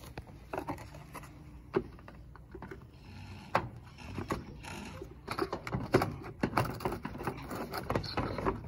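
Irregular light clicks and knocks from hands handling the lower panel edge of a Generac standby generator's enclosure. They come more thickly in the second half. The generator itself is not running.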